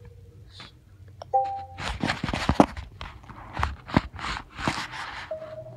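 Wii U GamePad menu sounds: a short two-tone chime, then a quick run of taps and knocks as fingers work the touchscreen and the pad is handled. A steady single menu tone comes in near the end.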